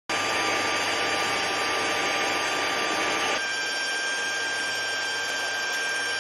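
Helicopter gas-turbine engines running steadily on an airfield: a rushing noise with a steady high whine over it. The whine changes pitch abruptly about three seconds in.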